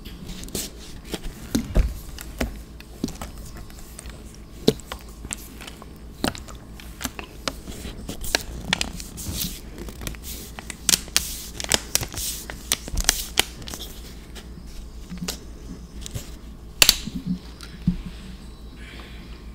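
Close-miked eating of mac and cheese: an irregular run of short wet mouth clicks and smacks as it is chewed.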